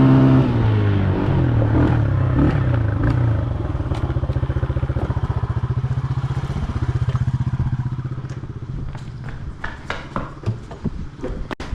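Excavator's diesel engine running with a steady low pulse, easing off a few seconds in and picking up again around the middle. Metal knocks and clatter come near the end.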